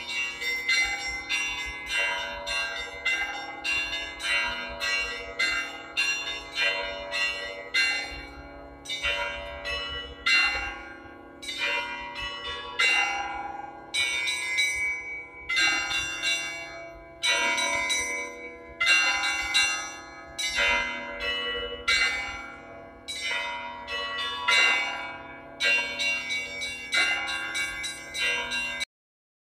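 Russian Orthodox church bells rung in the zvon style: several bells of different sizes struck in a fast, rhythmic pattern, each stroke leaving a ringing tone. The loudest strokes recur about once a second. The ringing cuts off suddenly near the end.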